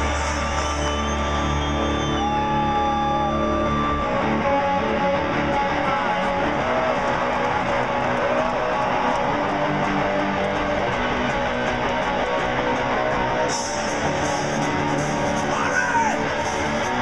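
Rock music with electric guitar and singing, played loud over a stadium concert sound system and recorded from the crowd.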